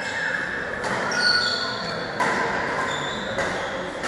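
Badminton shoes squeaking on a sports-hall floor, with three sharp racket-on-shuttlecock hits about a second apart, echoing in the large hall.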